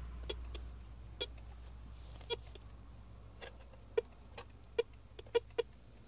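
Metal detector giving about a dozen short, irregular chirps as its search coil is swept back over the dug hole, rechecking the hole for a remaining target.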